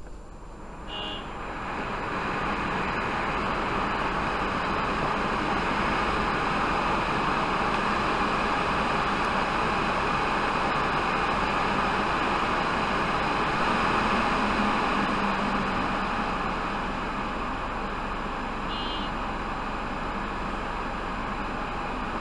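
Steady rushing machine noise that builds up over the first two seconds and runs on evenly, with a short electronic beep about a second in and another near the end.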